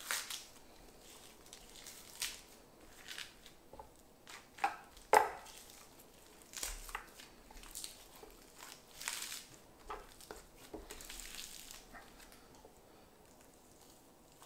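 Raw venison topside being worked by hand on a wooden board: the muscle cap pulled and peeled off, giving scattered short tearing and rubbing sounds, the loudest a sharp one about five seconds in. Near the end a boning knife slices into the meat.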